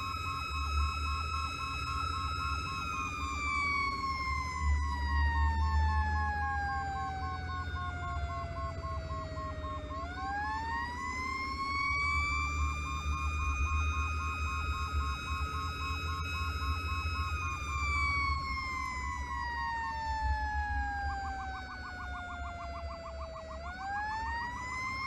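Fire-rescue truck's wailing siren, holding a high pitch, sliding slowly down over several seconds, then winding quickly back up; this happens twice, the second climb near the end. A rapid pulsing tone runs alongside, over the truck's low engine drone.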